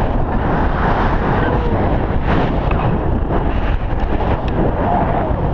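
Wind from flight rushing over an action camera's microphone: a loud, steady buffeting rumble.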